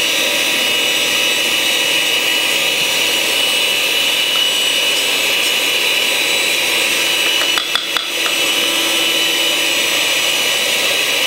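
Electric stand mixer running steadily, its beaters turning through brownie batter in a stainless steel bowl. A few short knocks come about eight seconds in.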